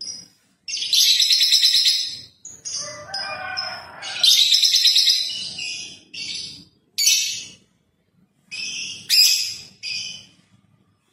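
Budgerigars chattering: fast, buzzy, high warbling phrases of a second or two, broken by short pauses, with a lower warbling phrase about three seconds in.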